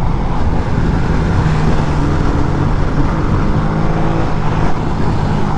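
Motorcycle engine running at a steady pace while riding, under heavy wind noise on the microphone.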